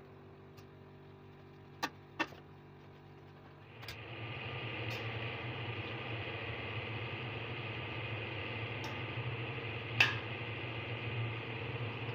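A metal utensil clinks twice against the pot as dried molokhia leaves are stirred. About four seconds in, a steady hiss sets in as the leaves cook in chicken broth, broken by a few clinks of the utensil against the pot, the sharpest about ten seconds in.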